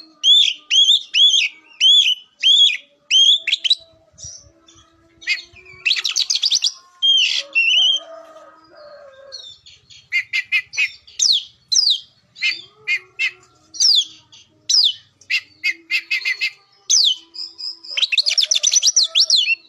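Oriental magpie-robin (kacer) in full song: loud, varied whistled and chattering phrases with short gaps between them. It opens with one rising-and-falling phrase repeated about six times in a steady rhythm and ends with a fast, dense run of notes.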